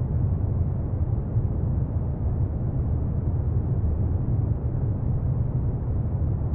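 Steady, dull low noise with no tune or pitched notes, heavy in the bass and unchanging throughout: an ambient noise bed of the brown-noise kind. No oud is heard.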